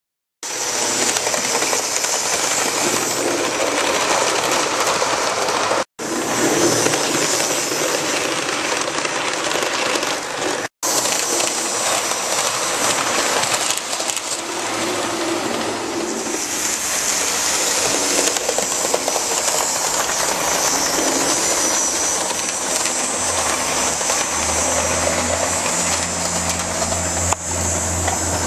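OO gauge model Warship locomotive and its coaches running along the track, a steady mechanical running noise. It drops out abruptly twice, and a low steady hum joins near the end.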